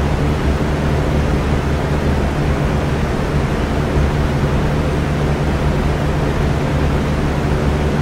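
Electric fan running steadily: an even rush of air with a low motor hum under it.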